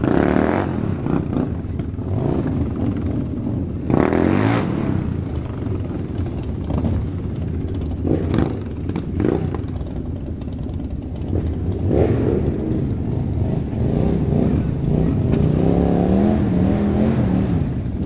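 A group of motorcycles with their engines running in a continuous rumble. Throttles are blipped in short revs about four and eight seconds in. Near the end an engine's pitch wavers up and down.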